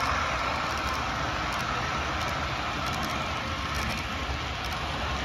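HO scale model container train running past on the track: a steady rumble of the cars' wheels rolling over the rails.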